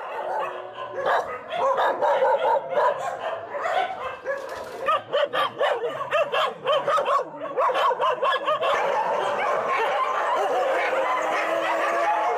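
A chorus of many dogs barking, yipping and howling at once. Sharp barks cut through the first half, and a denser, steadier howling takes over in the last few seconds.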